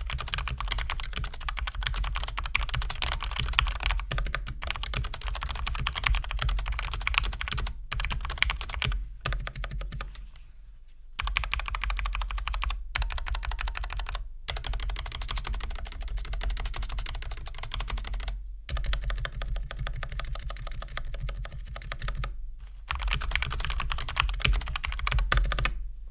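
Logitech MX Mechanical Mini low-profile mechanical keyboard with tactile switches and aftermarket keycaps, typed on steadily at speed: a dense run of key clacks, with a few short breaks and a longer pause about ten seconds in.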